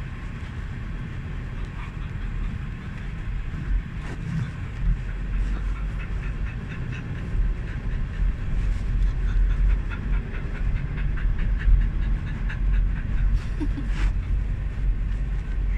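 Dog panting in quick, even breaths, most plainly through the middle stretch, over the steady low road rumble of a moving car's cabin. There is a sharp click near the end.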